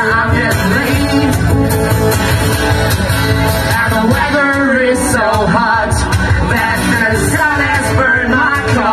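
Live band playing a rock song, with a man singing over guitar and drums.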